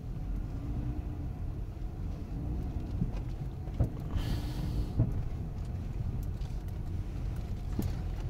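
Dodge Grand Caravan driving through a parking lot: a steady low rumble of engine and tyres heard from inside the cabin, with a few light clicks.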